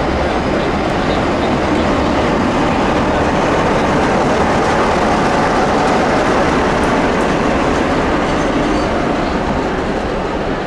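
Freight train's container flat wagons rolling past close by: a loud, steady rumble of steel wheels on rail, easing slightly near the end.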